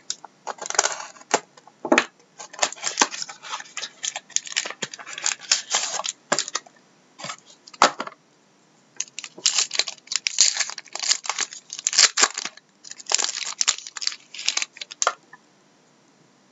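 Packs of trading cards being slit open with a hobby knife and their wrappers crinkled and torn, in irregular rustling bursts that stop about fifteen seconds in.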